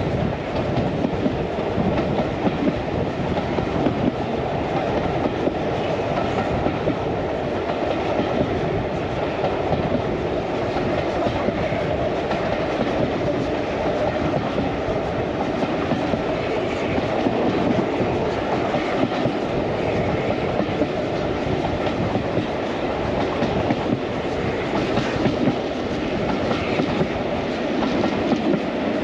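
Train running along the rails: a steady rolling rumble of wheels on track.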